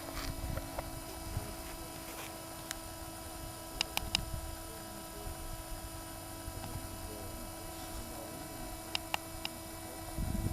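Steady mechanical hum holding one pitch with several overtones, cutting off suddenly near the end, with a few faint clicks.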